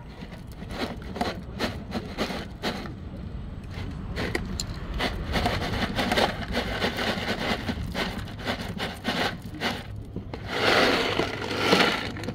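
Close handling noise: rustling and scraping with many small irregular clicks right at the microphone, swelling to a louder scraping rustle near the end.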